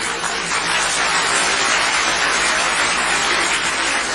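Sitcom studio audience applauding, a dense, steady mass of clapping that swells at the start and holds.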